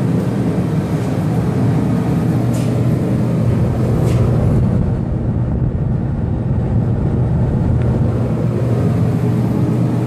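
ProTemp Sun-Stream PT-70-SS radiant kerosene heater running with its burner lit: a steady low drone from its fan and burner.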